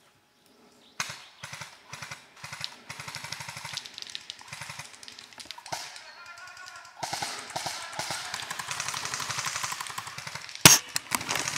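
Airsoft guns firing in rapid bursts, starting about a second in, with a long string of rapid shots in the second half. One sharp, loud crack comes near the end.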